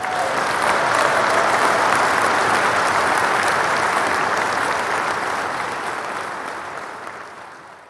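Audience applause, many hands clapping together: it swells in quickly, holds steady, then fades out over the last few seconds.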